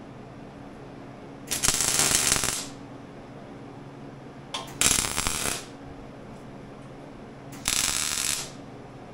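Electric arc welder laying three short welds on steel, each a crackling sizzle of about a second, with a low steady hum in the gaps between them.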